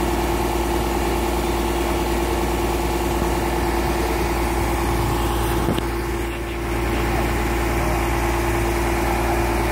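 A crane's engine running steadily, giving a constant hum with a low rumble beneath it while it holds a man-basket aloft.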